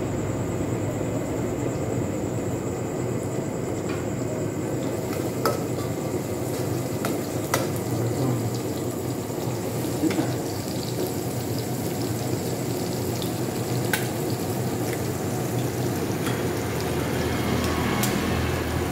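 Hot oil sizzling in a frying pan over a gas flame, with a few sharp pops spread through. Near the end an egg goes into the oil and the sizzle grows louder.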